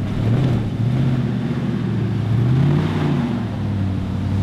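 Ram pickup truck's engine pulling at low speed as the truck crawls up a rocky bank, the revs climbing about two seconds in and falling back a second later.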